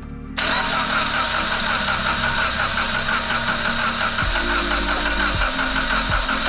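Mitsubishi Lancer Evolution X's 4B11T turbo four-cylinder being cranked over by its starter for a compression test. With the ignition and fuel pump fuses pulled, it turns over evenly without firing. The cranking starts abruptly about half a second in.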